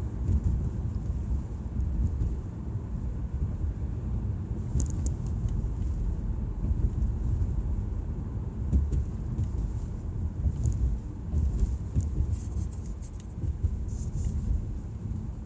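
Audi A4 on the move: a steady, uneven low rumble of engine and road, with scattered faint clicks.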